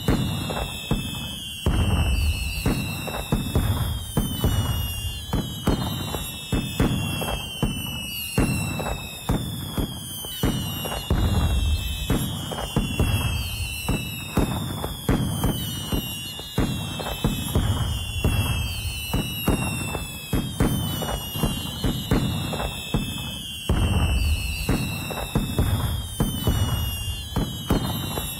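Fireworks going off: a dense string of bangs and crackles with low booms, and whistles that fall in pitch every second or two.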